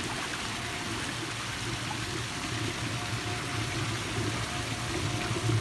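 Swimming-pool water running steadily, as an even rush with a low steady hum beneath it.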